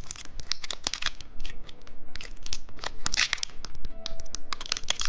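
Plastic candy wrapper crinkling and tearing as it is handled and opened: an irregular run of sharp crackles with brief pauses.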